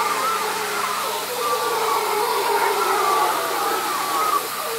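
Mantled howler monkeys howling: a long, hoarse, wavering drone whose pitch rises and falls, easing off near the end.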